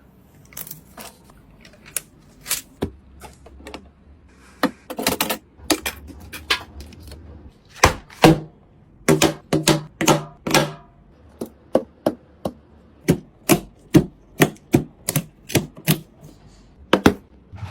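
Irregular sharp plastic-and-metal clicks and taps of computer parts being handled and fitted together, about one or two a second, some running into short rattles.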